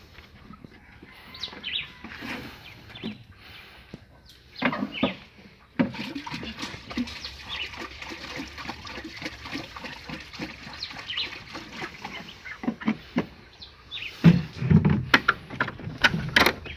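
Chickens clucking, with liquid poured from a plastic jug into a plastic drum making a steady pouring sound for several seconds midway. A few sharp knocks come near the end.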